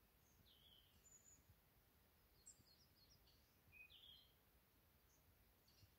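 Near silence, broken by a few faint, short, high bird chirps scattered through it.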